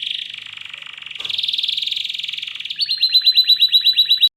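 Domestic canary singing: a continuous rolling trill, then fast repeated higher notes, about ten a second, that cut off abruptly near the end.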